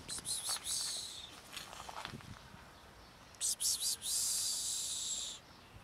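A small songbird singing high, trilling phrases: a short one right at the start, and a longer one of about two seconds beginning about three and a half seconds in.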